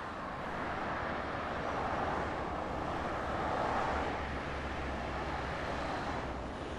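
Road traffic: a continuous wash of tyre and engine noise from cars passing on a busy highway, with a low rumble and a slight swell of a passing vehicle a few seconds in.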